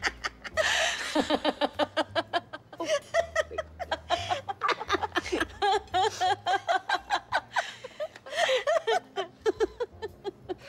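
Two women laughing hard together, a long fit of rapid giggling broken by breathy gasps near the start and again about eight seconds in.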